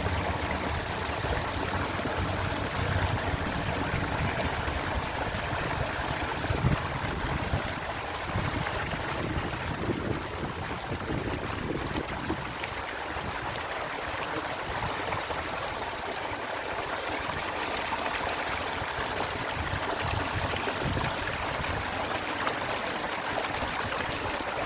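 Waterfall: water falling and splashing in a steady, continuous rush.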